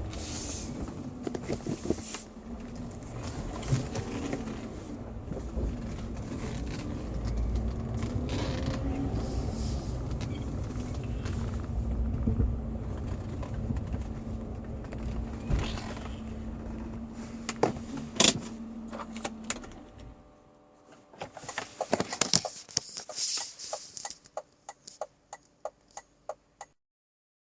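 BMW E46 320i's 2.0-litre inline-six (M52TU B20) running steadily, then stopping about 20 seconds in. A run of sharp clicks and knocks follows, ending about a second before the end.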